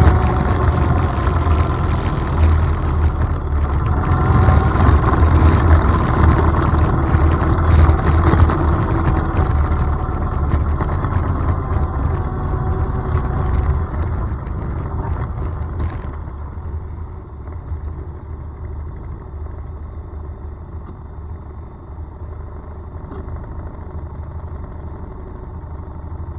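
ATV engine running as the machine rides a sandy trail, loud for the first half. About halfway through it eases off and runs noticeably quieter to the end.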